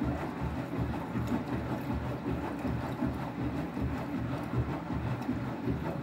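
Beko WTK104121W washing machine drum tumbling laundry through deep rinse water: continuous sloshing and splashing with irregular low surges as the load turns over.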